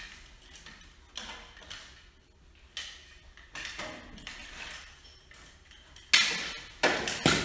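Metal objects being handled, giving scattered clinks and knocks, with three louder clanks close together near the end.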